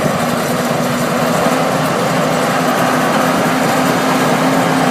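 John Deere 750E crawler bulldozer's diesel engine running steadily at a constant speed.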